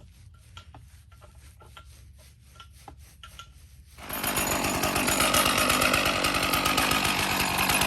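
Faint scattered ticking, then about four seconds in a chainsaw starts suddenly, running at high speed and steady as it rips a cedar log on an Alaskan chainsaw mill.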